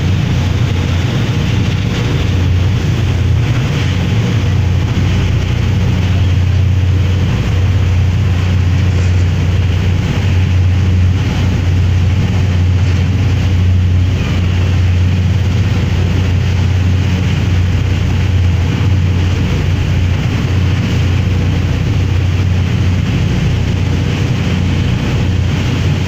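Lomprayah high-speed ferry's engines running at cruising speed, a loud, steady low drone, with the rush of the churning wake and wind on the microphone.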